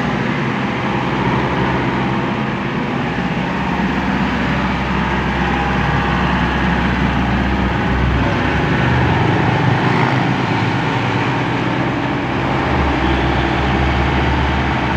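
Komatsu PC75UU mini excavator's diesel engine running steadily, its low note swelling briefly about 8 seconds in and again from about 13 seconds.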